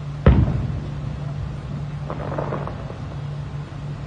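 Distant fireworks: one sharp boom of a shell bursting about a quarter second in, ringing out briefly, then a cluster of smaller crackling pops about two seconds in. A steady low hum sits underneath.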